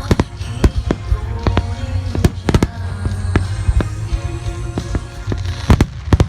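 Aerial firework shells bursting in an irregular volley, about a dozen sharp bangs, some in quick pairs, with the loudest near the middle and near the end. Music plays underneath from loudspeakers.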